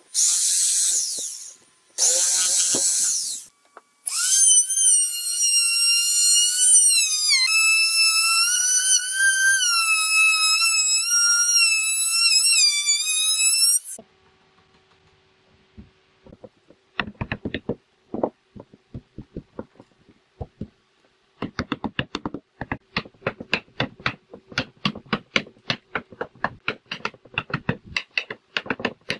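Makita 4328 jigsaw cutting slots in a wooden board in two short bursts. This is followed by about ten seconds of a high wavering tone, then, after a pause, a long irregular run of quick light knocks and clicks.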